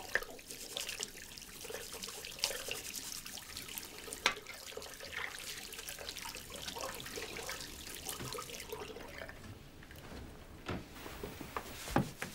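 Tap water running into a washbasin while hands are washed under it, splashing and dripping. The running water thins out about nine seconds in, and a couple of sharp knocks follow near the end.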